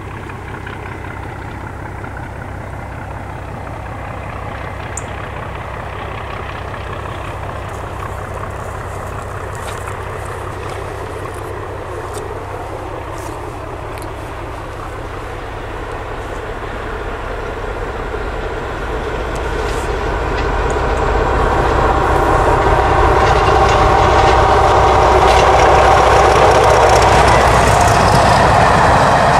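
Class 37 diesel locomotive's English Electric V12 engine working hard as it hauls coaches, a steady low throb that grows louder from about halfway through as the train draws near.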